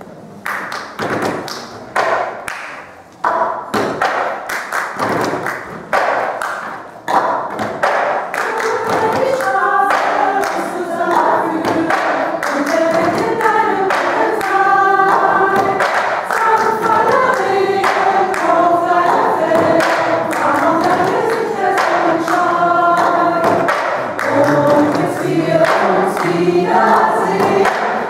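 Plastic cups tapped, clapped and knocked on a tabletop in a repeating cup-game rhythm. About nine seconds in a choir comes in singing over it while the cup rhythm carries on.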